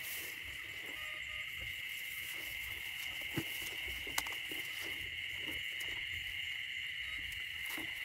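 Steady, high-pitched chorus of night insects calling without a break. Two sharp clicks stand out a little past the middle.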